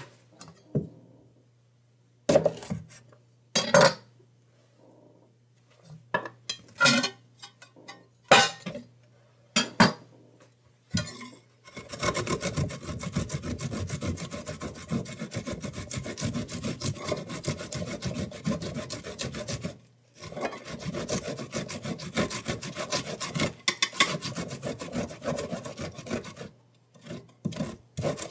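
Fresh ginger root grated on a flat metal hand grater resting on a plate: a continuous rasping scrape of quick strokes, starting about a third of the way in and breaking off twice briefly. Before it, scattered knocks and clinks as the grater and plate are handled and set in place.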